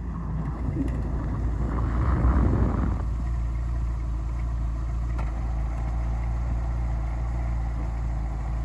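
Car engine, louder and rougher for the first three seconds, then settling into a steady idle.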